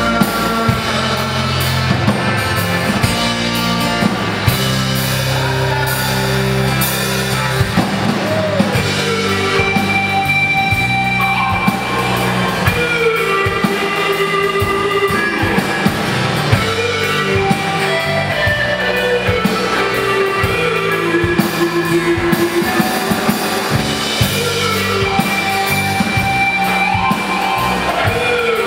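Live rock band playing: drum kit, electric guitars and bass, amplified through a stage PA.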